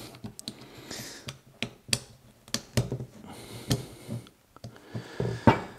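Irregular small clicks and light taps of velomobile drum-brake shoes and their return spring being worked onto the brake plate by hand.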